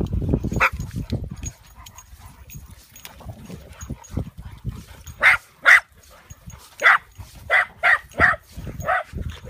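Dog barking: one bark just after the start, then a run of about seven sharp barks in quick succession in the second half.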